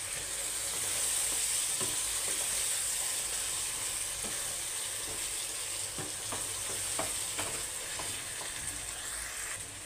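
Chicken pieces, onions and ginger-garlic paste sizzling steadily in hot oil in a non-stick kadhai, being fried (bhuna) while a spatula stirs them, with scattered light taps and scrapes of the spatula against the pan.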